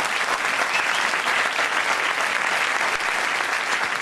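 Theatre audience applauding, dense steady clapping throughout.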